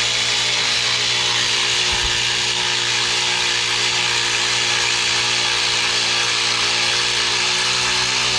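Handheld power tool's electric motor running steadily at full speed with an even whine, spinning a 13 mm bolt out of the AC hose bracket.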